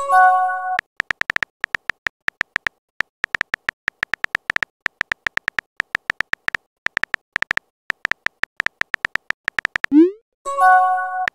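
Texting-story app's keyboard sound effect: quick pitched key-tap clicks, several a second, as a message is typed. A short chime sounds at the start, and about ten seconds in a rising swoop and another chime mark the message being sent.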